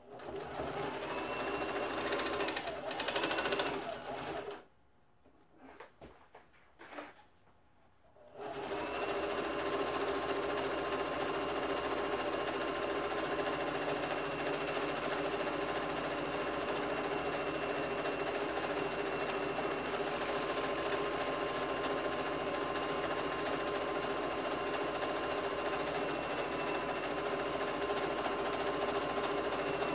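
Household electric sewing machine stitching a seam: a run of about four seconds, a pause of about four seconds with a few small handling sounds, then a steady run of about twenty seconds.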